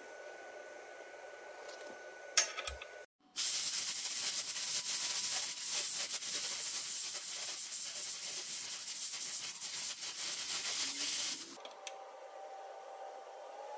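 A sharp click, then about eight seconds of steady, loud hissing from the XPhotonics X1 Pro 700 W fiber laser's cutting torch, blowing 60 psi compressed air as it cuts through a 10 mm steel bolt. The hiss stops suddenly when the cut is finished.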